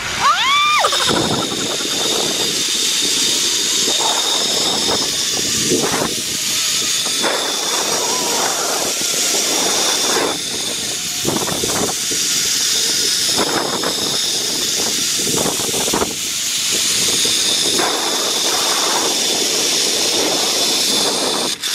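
A woman's short rising scream as she sets off down a zipline, then a steady rush of wind on the microphone and the trolley's pulley running along the cable with a thin steady whine, until the ride slows near the end.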